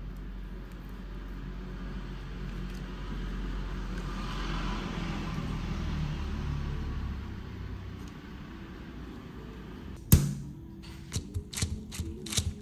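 A low rumble that swells around the middle and fades, then a run of sharp knocks and taps, the first the loudest, as dough and cookies are handled on the parchment-covered worktop.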